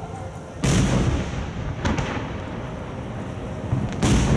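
Aerial firework shells bursting, heard as deep booms echoing over a distance: a loud one under a second in, a fainter one about two seconds in, and another loud one near the end.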